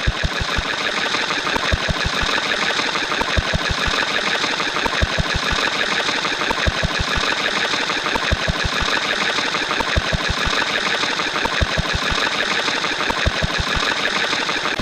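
A steady, dense mechanical rattling with irregular low thumps, like a machine running hard, with no change in level.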